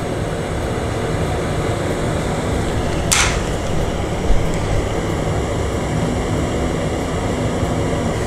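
Fume extractor fan running steadily. About three seconds in, a brief sizzle as the soldering iron tacks the flux-greased display contacts, followed by a small knock.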